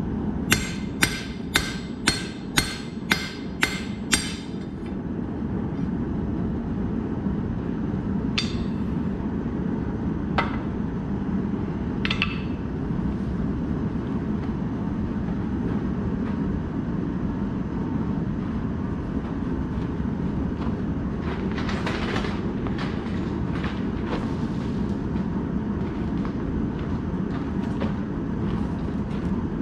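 Hand hammer striking hot square steel bar on an anvil: about eight ringing blows in quick succession, then a few single metal clinks and a short spell of metal clatter about two-thirds of the way through, over a steady low roar.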